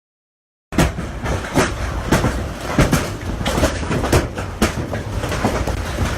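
Severe storm noise starting abruptly after a short silence: a loud, steady roar with sharp knocks about every half second or so.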